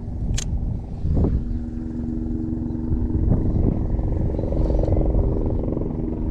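Wind buffeting the microphone with a low rumble. From about a second in, a steady engine-like hum joins it.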